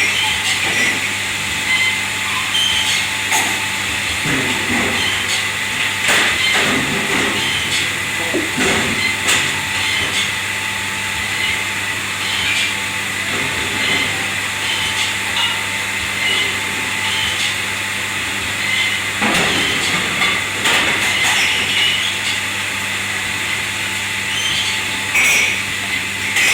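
Steady hum and hiss of commercial kitchen machinery, with scattered knocks and clatter of dishware and pans being handled.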